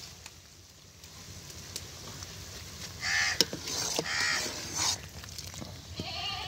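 A few short animal calls about three to five seconds in, then a goat starting to bleat near the end.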